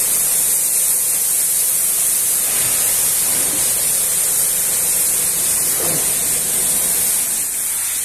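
High-pressure water jet from a car-wash spray lance hitting a pickup's body and the wet concrete floor: a steady, loud hiss that eases off near the end.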